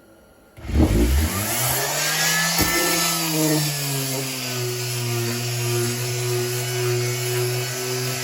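Electric orbital sander with 220-grit paper switched on about half a second in: its motor hum climbs in pitch as it spins up, then settles into a steady tone, with the hiss of the abrasive against the work.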